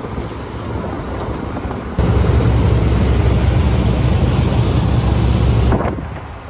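Vehicle on the move: steady road and wind noise with a heavy low rumble. It jumps louder about two seconds in and dies down near the end.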